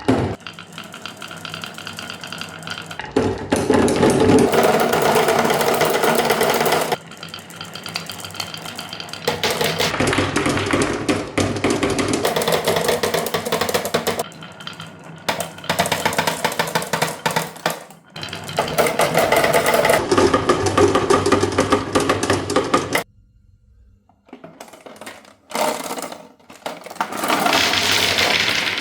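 Marbles rolling and clattering down a wooden marble run, a fast dense rattle of clicks. It comes in loud runs of a few seconds with brief lulls, and drops away briefly about two-thirds of the way through.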